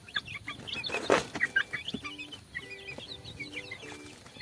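Young kampung chickens, about four weeks old, peeping and cheeping in short repeated calls, with one louder rustling burst about a second in.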